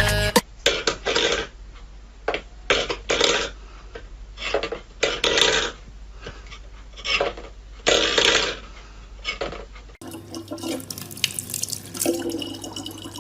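Water splashing in a sink in irregular bursts. About ten seconds in, the sound changes to a tap running with a steady low hum.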